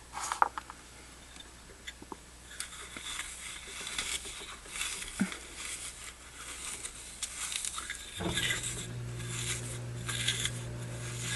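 Extra-fine steel wool, wound on a pencil end, scrubbing the metal of a Zippo lighter case in irregular scratchy strokes to rub off discoloration, with a few light clicks. A steady low hum comes in about eight seconds in.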